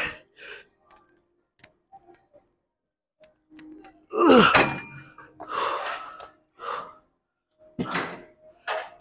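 A man grunting and breathing hard through the last reps of a seated cable row, with the loudest, strained grunt about four and a half seconds in. The machine's weight stack thunks as he finishes and lets go of the handle.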